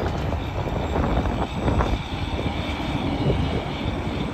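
Interstate highway traffic passing at speed: a steady wash of tyre and engine noise with a faint steady whine.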